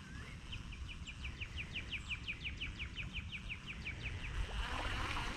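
A songbird's trill: a rapid run of about twenty short, falling notes, about five a second, lasting nearly four seconds. A brief rush of noise follows near the end, over a steady low rumble.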